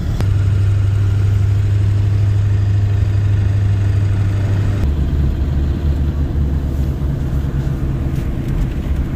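Pickup truck with an old 7.3-litre diesel V8 driving, heard inside the cab as a steady low drone of engine and road noise. The drone shifts lower about five seconds in.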